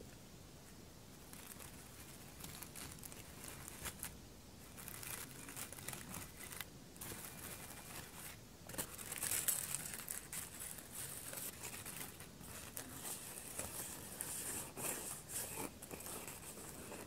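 Hands rubbing and handling a dry, crinkly object close to the microphone: a rough, crackly rustling that comes and goes, growing busier and louder about nine seconds in.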